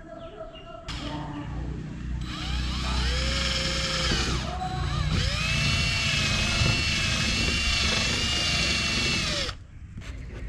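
Cordless drill boring a hole through a plastic car bumper. The motor runs twice, each time speeding up, holding and slowing down, and the second run is the longer one.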